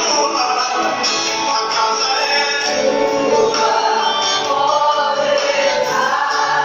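Gospel music: voices singing a hymn over instrumental backing.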